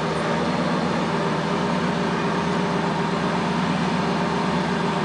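Lamborghini Gallardo SE's V10 idling steadily through an aftermarket Tubi exhaust.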